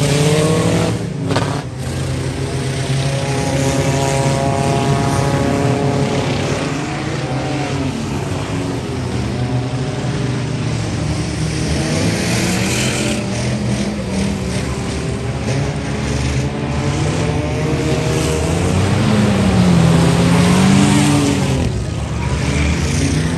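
Race car engines running hard on track, their pitch rising and falling again and again as they rev up and back off.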